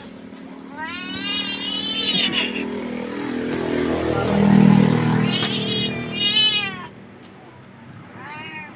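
Tabby cat yowling while a monkey clambers on its back: two long, drawn-out meows, one starting about a second in and the other about five seconds in. Between them comes a lower moaning sound, the loudest part, around the middle.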